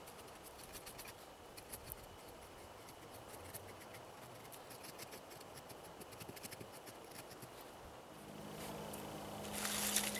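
Knife blade shaving curls off a stick of wood: soft, irregular scratchy scrapes and clicks, with one longer, louder scrape near the end.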